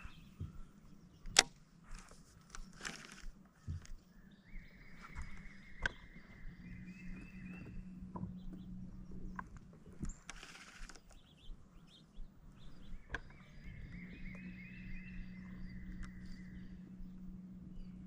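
A fishing rod cast and a reel retrieve, twice: a brief swish of line off the spool, then a steady whir of the reel being cranked for several seconds, with scattered small clicks of tackle handling.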